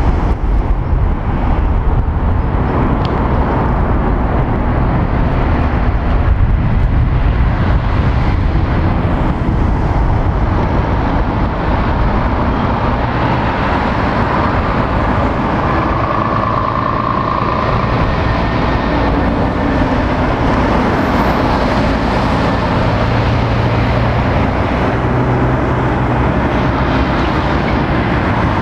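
Steady road traffic: cars and heavy articulated lorries passing close by, the lorries' diesel engines running.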